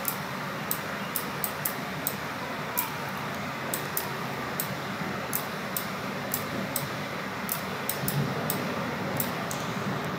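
Computer mouse buttons clicking at irregular intervals, roughly two clicks a second, over a steady background hiss.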